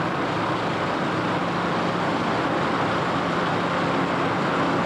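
Construction-site machinery running steadily: a low hum under an even rush of noise that does not change.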